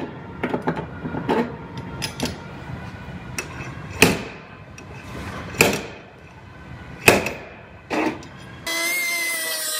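Slide hammer pulling out a pushed-in quarter panel dog leg by a tab welded to its edge: a few light clicks, then four sharp knocks of the sliding weight striking its stop, about a second and a half apart. Near the end a grinder starts running steadily.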